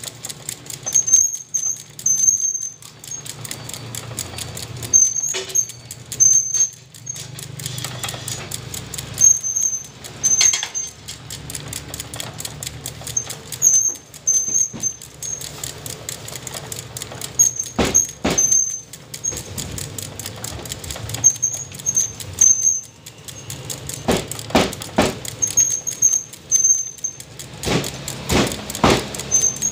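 A meat cleaver chopping through a roast chicken into a wooden chopping block: a pair of sharp chops about two-thirds of the way in, then a quick run of chops near the end. Repeated short high chirps sound throughout.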